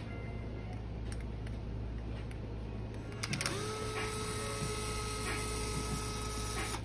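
Cordless electric screwdriver spinning up and running steadily for about three seconds, then stopping. It is backing out a cylinder-head screw on a nitro RC engine. A few clicks of the bit seating come just before it starts.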